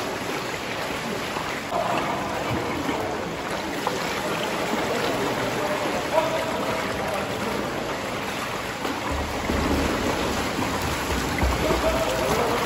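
Water splashing and churning as several swimmers stroke and kick in an indoor pool.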